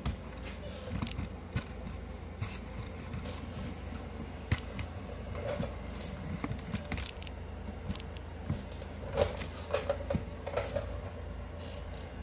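Scattered light knocks, clicks and scrapes of handling and movement over a low steady hum. The louder knocks come about halfway through and in a cluster near the end.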